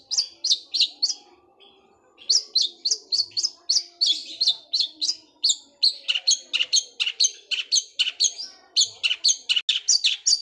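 Long-tailed shrike (cendet) singing a rapid, machine-gun-like run of sharp high chirps, about five a second, mimicking a tree sparrow's chirping. The run breaks off for about a second near the start, then carries on without a break.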